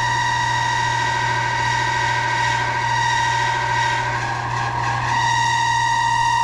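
Air conditioner condenser fan motor screeching with a steady high-pitched squeal over a low hum from the running unit; the squeal falters for about a second, roughly four seconds in, then comes back. The motor is about to go out.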